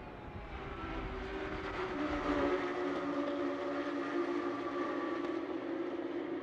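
Flat-six engines of a pack of Porsche 911 GT3 Cup race cars running hard together. About two seconds in, a high engine note rises and then holds steady.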